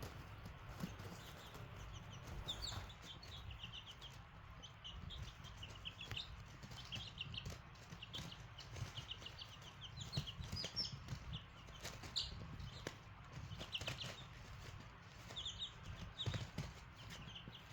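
Young chicks peeping, with many short, high chirps in quick runs, mixed with light tapping of beaks pecking at food.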